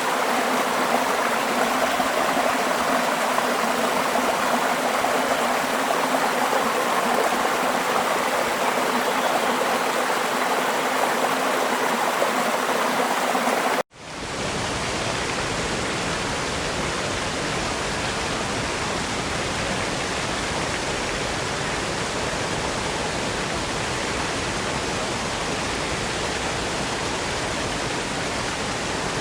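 Running water: a flowing stream first, then after a sudden cut about halfway through, a steadier, fuller rush of water reaching deeper, like a waterfall.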